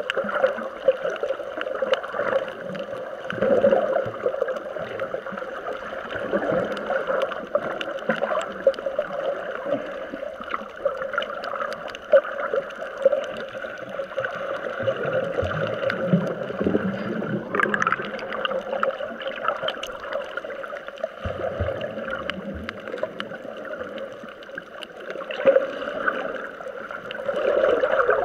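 Water gurgling and sloshing, heard muffled through a camera held underwater, with irregular bubbling and splashing from snorkelers kicking their fins near the surface over a steady hum.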